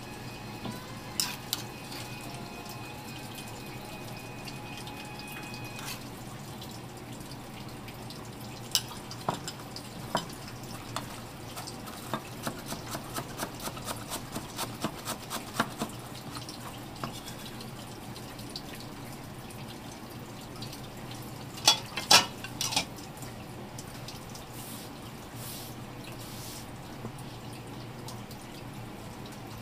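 Small wet clicks and drips from cleaning kibinago by hand with wet fingers, scattered, with a quick run of them about halfway through and a louder cluster a little later, over a steady low hum.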